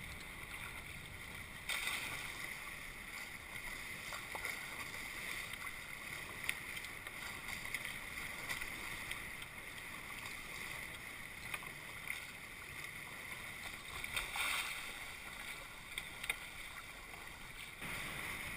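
Steady rush of water along the hulls of a Tornado catamaran sailing at speed, with a few short sharp slaps of spray against the boat.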